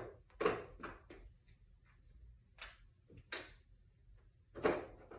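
Dog clipper blades clicking and clacking as they are sorted through and swapped on the clipper: a handful of separate sharp clicks, with louder ones about half a second in and near the end.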